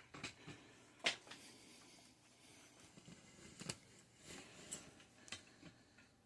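Faint, scattered light clicks and knocks of bike parts and tools being handled, the sharpest about a second in.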